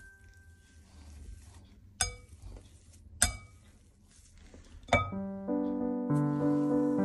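Metal potato masher clinking against a glass bowl three times while mashing boiled potatoes. Piano music comes in about five seconds in and carries on.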